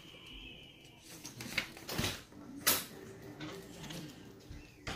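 Scattered clicks and knocks of hard plastic as a portable shampoo bowl's parts and screws are handled during assembly, the loudest about two seconds in and again shortly after.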